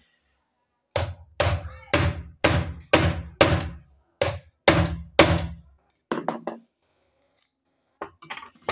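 Hammer blows on a pipe driving a new 608 ball bearing down onto a sewing machine motor's armature shaft. There are about eight heavy metallic knocks, roughly two a second, then a few lighter taps near the end as the bearing seats.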